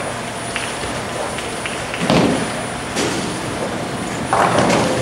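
Bowling alley din: a steady rumble of balls rolling on the lanes, with a heavy thud of ball and pins about two seconds in and a sharp crack about a second later.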